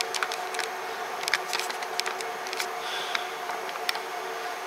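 Kinchrome oil-lubricated air compressor running with a steady hum and scattered light ticks. It is spewing a milky mix of water and oil: water has got into its oil.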